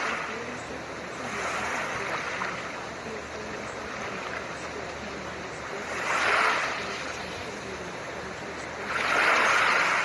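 Steady blue-noise hiss with soft ocean waves washing in over it, each wave a swell of rushing surf lasting about a second; three swells rise about a second and a half in, around six seconds in, and near the end.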